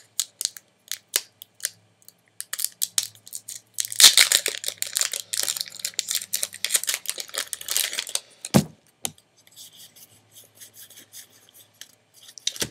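Foil booster-pack wrapper crinkling and tearing as it is pulled open by hand, with one sharp pop about two-thirds of the way in, then faint rustling of the cards.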